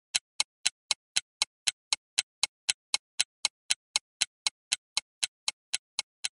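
Clock-like ticking of a countdown-timer sound effect: sharp, evenly spaced ticks, about four a second.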